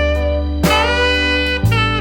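Background instrumental music: a lead melody of long held notes, a new one starting about every second, over a steady bass.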